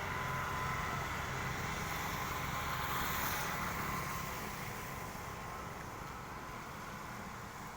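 Engine of a heavy vehicle running steadily with a faint high whine, slowly getting quieter from about halfway through.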